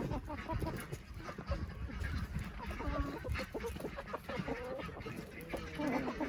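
Farmyard fowl calling: many short, overlapping calls from a flock of ducks and chickens, over a low background rumble.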